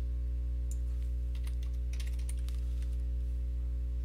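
Faint computer keyboard keystrokes and clicks, a short run of them between about one and two and a half seconds in, over a steady low hum with several overtones that is the loudest thing throughout.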